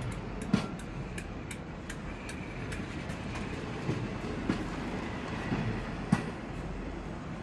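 Locomotive-hauled train rolling slowly over rail joints and points: irregular wheel clicks and knocks over a steady rumble, the sharpest knocks just after the start and about six seconds in, with a faint wheel squeal at times.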